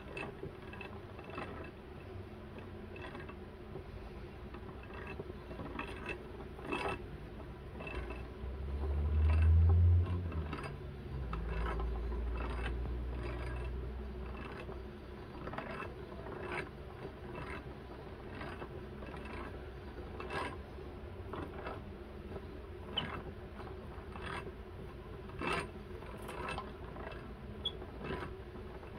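Plastic yarn ball winder turning, its gears whirring with a steady hum and irregular clicks, as the umbrella yarn swift spins and feeds hemp yarn onto the cake. A louder low rumble rises and fades about nine to fourteen seconds in.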